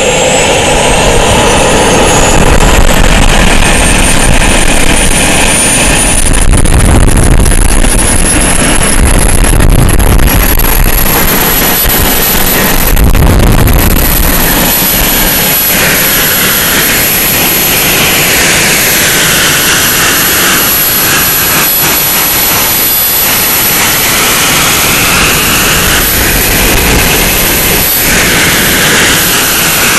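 Small model turbojet engine on a radio-controlled truck running, with a loud high whine that climbs in pitch over the first ten seconds or so and then holds steady.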